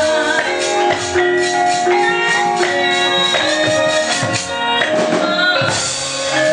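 Javanese gamelan ensemble playing: struck bronze keys and kettle gongs ring in a steady run of notes. Near the end comes a short burst of metallic clatter.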